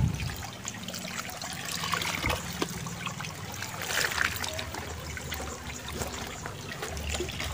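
Shallow water splashing and trickling, with many small scattered patters, as a hand net scoops a dense crowd of giant gourami fry from a netted pond corner and water runs off the net into a basin. A sharper splash comes right at the start.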